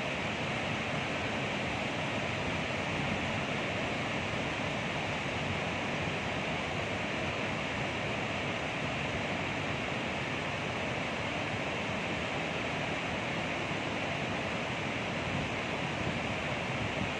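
Flood water discharging through an open spillway gate of Srisailam Dam and crashing into the river below, a steady, unbroken rush of water and spray.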